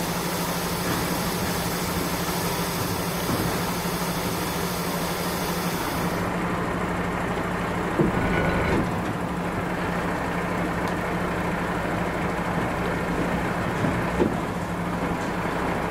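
Heavy recovery truck's diesel engine idling steadily, with a hiss that cuts off sharply about six seconds in. A clunk about eight seconds in and a few light knocks near the end as the air hoses between truck and bus are handled.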